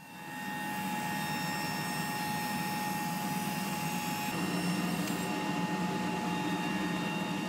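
Powermatic thickness planer running, a steady loud hum with a constant whine over it.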